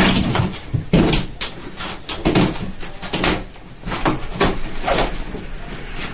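A cat batting and clawing at a toilet paper roll on its wall holder: a run of irregular knocks and rattles as the roll jerks on the holder, with rustling paper.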